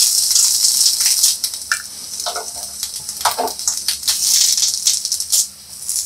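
Indian borage leaves crackling and sizzling on a hot tawa as the water in them cooks off: a dense, rattling hiss that eases off in the middle and swells again about four seconds in.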